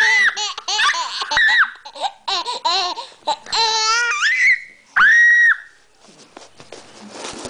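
Baby laughing in a string of short, high-pitched bursts, with a rising squeal near the middle and a long high squeal about five seconds in, then falling quiet.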